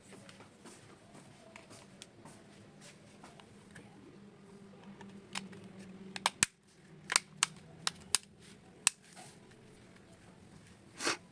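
Sharp plastic clicks and taps from an Itel Ace 2 Lite keypad phone being put back together, about half a dozen in a quick cluster from six to nine seconds in and one more near the end.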